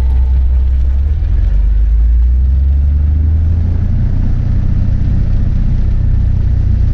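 Single-engine light aircraft's piston engine and propeller running at a low, steady power setting, heard from inside the cockpit, a deep even drone as the plane rolls across a grass strip.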